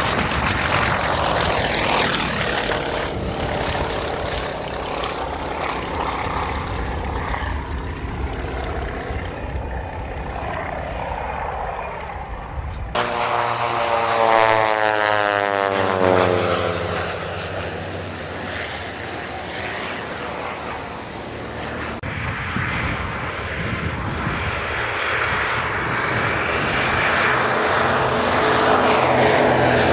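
Piston-engined propeller aircraft droning past on low passes, in three cut-together passes that change abruptly about 13 and 22 seconds in. In the middle pass the engine note sweeps down in pitch as the aircraft goes by close. The last pass is a Consolidated PBY Catalina's two radial engines, growing louder as it comes in low.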